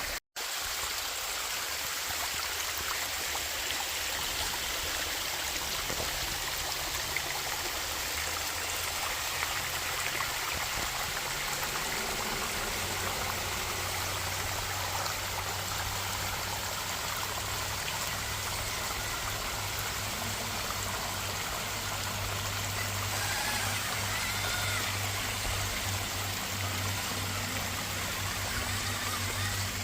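Water of a mountain waterfall rushing steadily. A low steady hum comes in under it about twelve seconds in.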